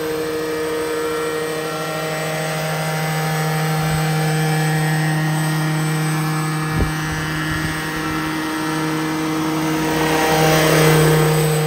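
Petrol-engined radio-controlled scale Bell 212 helicopter flying low: a steady engine and rotor drone with a single thump about seven seconds in. It grows louder and windier as the helicopter passes close near the end.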